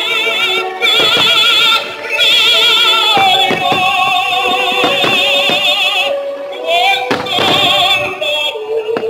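Operatic singing with heavy vibrato over sustained orchestral notes, the show's music, punctuated by many sharp bangs of fireworks shells bursting.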